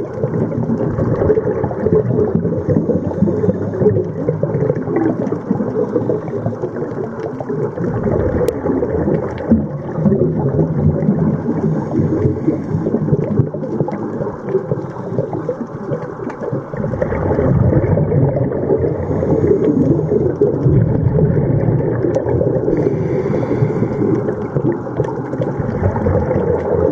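Underwater ambient noise as picked up by a submerged camera: a steady low rumble and gurgle of moving water, a little louder in the second half.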